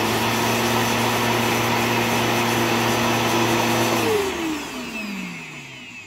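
Bissell PowerForce Helix Turbo Pet 3332 upright vacuum running steadily, its motor without a high-pitched shrill. About four seconds in it is switched off and the motor winds down, the pitch falling and the sound fading.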